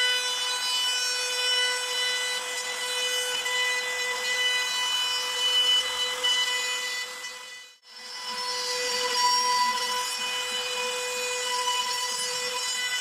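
Makita trim router, the spindle of a CNC machine, running at high speed with a steady high whine while its bit cuts slots into plywood. The sound cuts out for a moment about eight seconds in, then picks up again.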